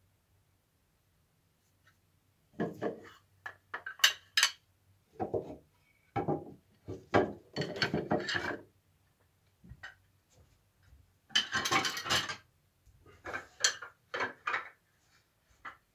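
Homemade wood-turning chisels, steel blades in turned wooden handles, clinking and knocking against one another as a bunch of them is gathered up and handled. The clatter comes in irregular bursts, starting about two and a half seconds in.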